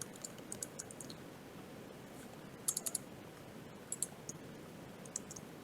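Typing on a computer keyboard: short runs of light keystrokes, a few at a time, with pauses between them.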